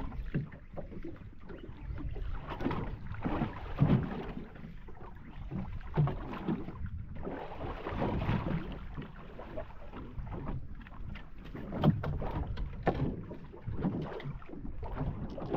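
Water slapping against the hull of a small fishing boat, with wind on the microphone and a few dull knocks.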